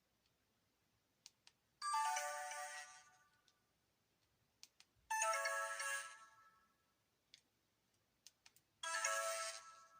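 Sony Ericsson K508i mobile phone playing three short message alert tones one after another, each a chime of several notes that rings out and fades over about a second, with faint clicks between them.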